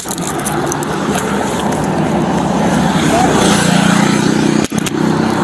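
Steady roadway noise with a vehicle engine running nearby, growing louder about three seconds in.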